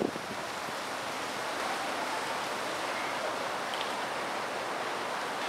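Steady, even rushing noise with no changes, with a faint brief high chirp a little after three and a half seconds in.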